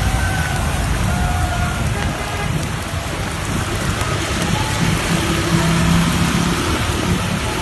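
Heavy rain and hail pouring down in a dense, steady hiss.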